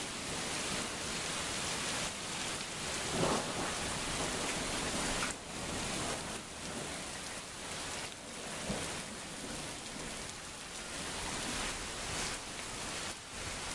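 Heavy rain pouring steadily during a severe thunderstorm, a dense even hiss with a brief louder swell about three seconds in.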